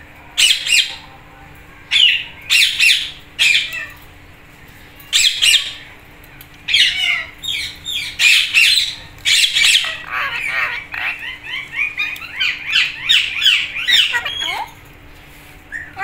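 Alexandrine and Indian ringneck parakeets calling: loud calls in short separate bursts, then about ten seconds in a run of rapid chattering calls lasting several seconds.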